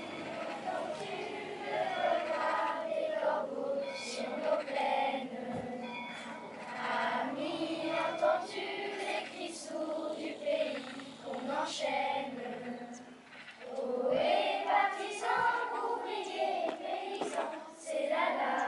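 A group of schoolchildren singing together as a choir, with a short break in the singing about fourteen seconds in.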